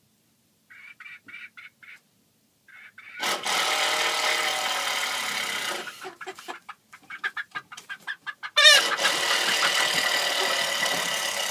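Domestic hens on a night roost: a few soft, quickly repeated clucks, then two loud outbursts of squawking and wing-flapping as the birds squabble for places on the perch while settling to roost.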